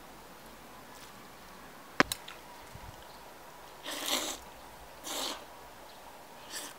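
A single sharp metal clank about two seconds in as the lid goes onto a stainless steel stockpot, then three loud slurps of cold mixed noodles being sucked up from the bowl in the second half.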